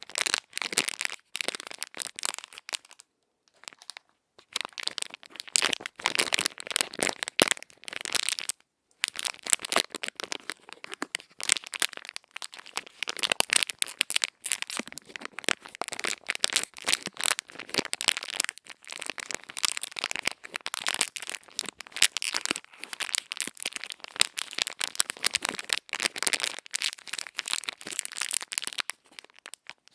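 ASMR ear-cleaning sounds made close on the microphone: dense, crisp crackling and scratching, pausing briefly about three seconds in and again near nine seconds.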